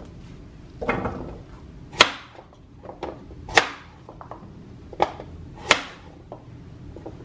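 Chef's knife chopping raw sweet potato on a bamboo cutting board: separate sharp knocks of the blade cutting through onto the wood, four loud ones about a second or so apart with a few fainter taps between.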